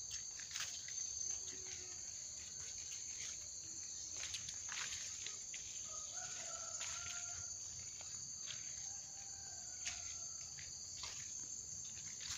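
Insects shrilling steadily at two high pitches, with scattered light clicks and rustles of footsteps along an overgrown path, and faint drawn-out calls a little past the middle.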